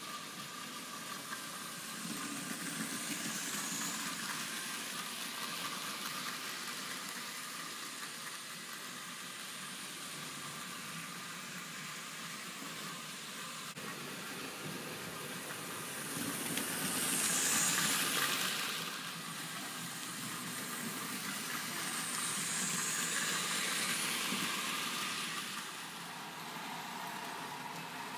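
Vintage 1960s VB HO-scale electric model locomotives running on three-rail track: small motors whirring and heavy zamac freight wagons rolling on the rails, in a steady hiss. The noise swells three times, loudest a little past the middle.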